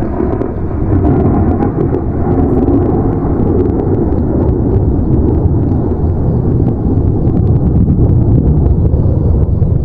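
Strong storm wind blasting the microphone: a loud, steady low roar with scattered crackles.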